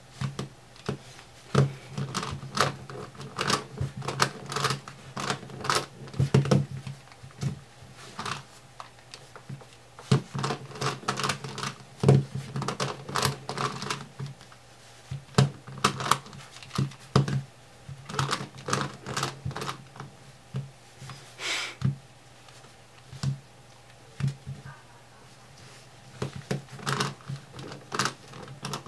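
Plastic Rex Cube puzzle being turned fast by hand: quick runs of clicking, clacking corner turns, broken by short pauses.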